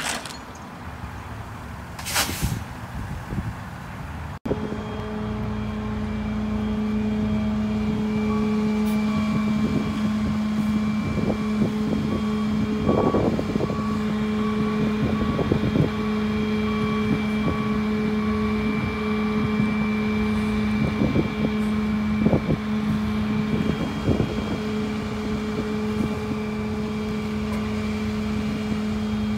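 A flatbed tow truck's engine running with a steady, unchanging hum, with occasional short knocks and rustles close by.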